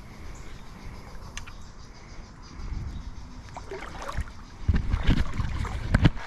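River water sloshing and splashing around a person's legs as he wades through it, with irregular surges that grow louder in the last couple of seconds.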